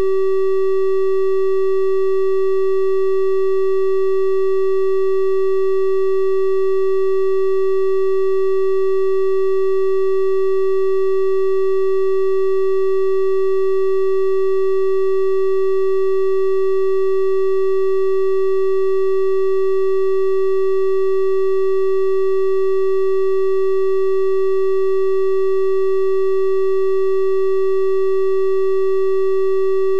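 Synthesized 384 Hz triangle-wave tone, held perfectly steady: a pure-sounding hum with faint higher overtones, unchanging in pitch and loudness.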